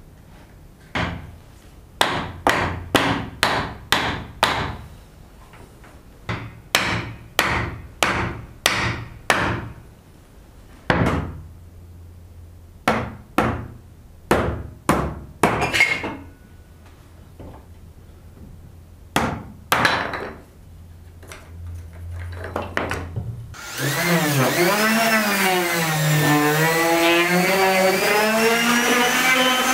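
Hammer tapping on wood in short runs of several blows, about two to three a second, with pauses between runs. Near the end an electric power tool's motor starts and runs, its pitch dipping and then rising.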